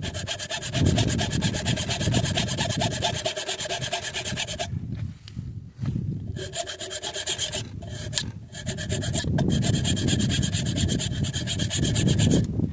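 Rapid rasping strokes of filing or abrading a Glock pistol's trigger part to relieve it, sped up to double speed. The work pauses briefly about five seconds in and again around eight seconds in.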